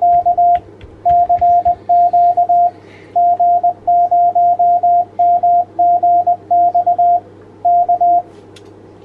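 Morse code (CW) tone keyed in dots and dashes, in groups with short pauses between them, a ham radio sign-off. Under it runs a steady radio hiss and a low hum.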